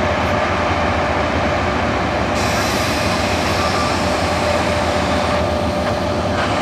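Thai railway Hitachi diesel-electric locomotive No. 4512 running as it hauls a passenger train slowly out of the station. A steady low engine drone carries a steady higher tone over it, and a hiss of moving-train noise comes in from a little past two seconds.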